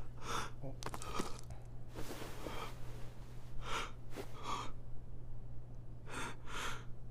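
A person breathing audibly, short breaths in and out every second or so, over a steady low hum.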